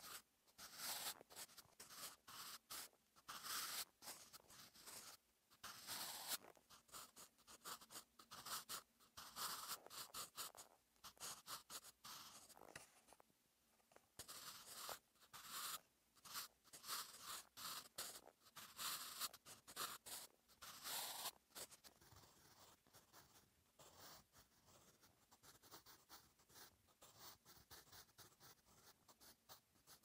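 Staedtler Mars Lumograph Jumbo 8B pencil writing Korean cursive on notebook paper: soft graphite strokes scratching across the paper in quick runs, with a short pause about halfway. In the last third the strokes are lighter and quieter.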